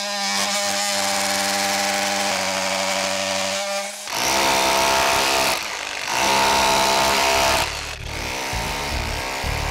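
Handheld electric power tool cutting out rotten wood at the base of an old timber-frame post. The motor runs with a steady whine for about four seconds, then goes louder and rougher twice as the blade bites into the wood.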